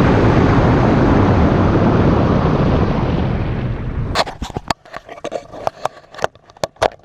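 Loud rushing wind noise buffeting the microphone at highway speed for about four seconds, then dropping away into a series of sharp clicks and knocks.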